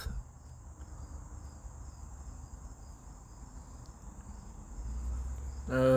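Steady high-pitched chirring of insects, over a low rumble that grows louder near the end, where a man's voice begins.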